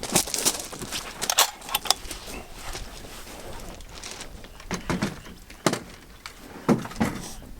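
Irregular sharp clicks and clatter, a handful of them much louder than the rest.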